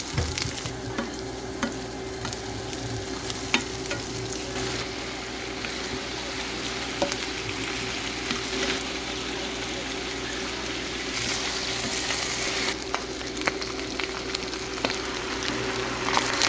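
Food sizzling in oil in a pan as it is stirred, with scattered sharp clicks of a utensil against the pan. The sizzle swells briefly about two-thirds of the way through.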